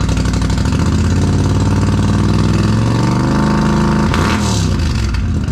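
2019 Polaris Sportsman XP 1000 High Lifter's twin-cylinder engine revved through an RJWC Mud Edition aftermarket exhaust. The revs climb for about three seconds, hold, drop sharply about four seconds in, then pick up again.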